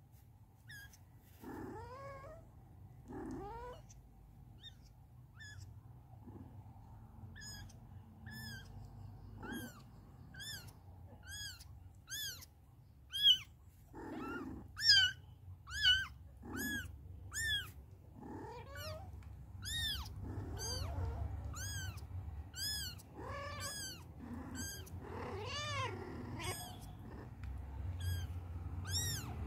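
Young kittens mewing, with short, high-pitched cries that come sparsely at first and then one or two a second, louder toward the middle, as they jostle each other at their nursing mother.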